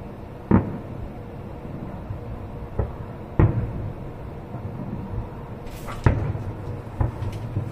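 Aerial firework shells bursting in the sky, heard from a distance as about five sharp booms at irregular intervals, a few seconds apart.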